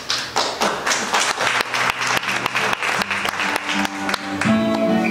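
Audience applauding, with music fading in about three seconds in and taking over near the end as the clapping dies away.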